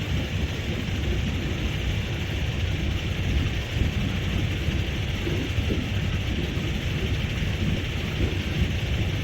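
Steady low rumble of a moving vehicle, engine and road noise with an even hiss of wind over it.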